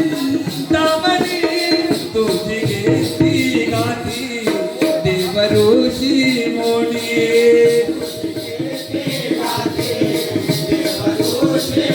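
Jakhadi folk music: a melodic vocal line over a steady rhythmic beat of jingling percussion strokes, about three to four a second.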